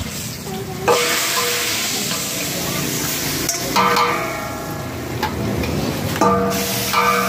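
Hot ghee and spices sizzling in a pot of dal as a tarka, while a steel ladle stirs and knocks against the metal pot. Ringing clanks come about a second in, near four seconds and again near six seconds.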